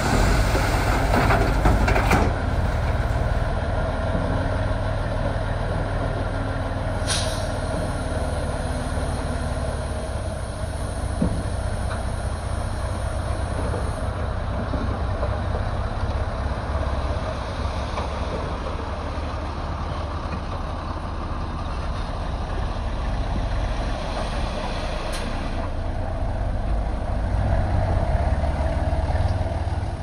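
Heavy diesel earthmoving machinery, bulldozers and dump trucks, running steadily with a deep low rumble. Two short hisses stand out, about seven seconds in and again about twenty-five seconds in.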